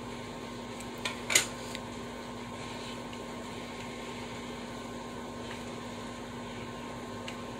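Steady mechanical hum with a constant low tone. About a second in, two short sharp crackles, the second louder.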